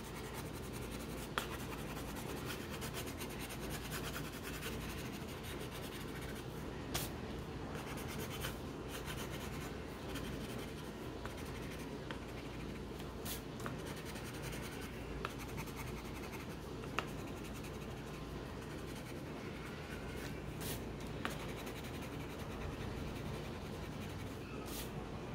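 A coloured pencil scratching and rubbing on paper as it draws and fills in small patches, with a few light taps along the way.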